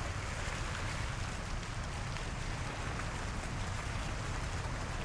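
Steady running water from a rock waterfall feature pouring into a bathing pool, an even rushing without breaks.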